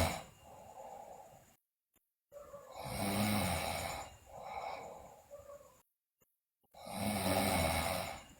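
A sleeping girl snoring: two loud, low, rattling snores on the in-breath, about four seconds apart, each followed by a quieter breath out.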